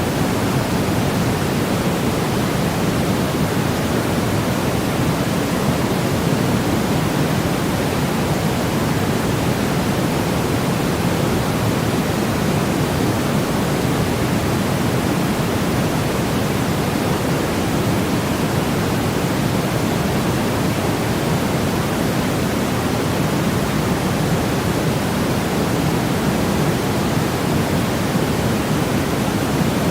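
Steady white-noise track: an unbroken, even hiss that is fullest in the low range, with no change.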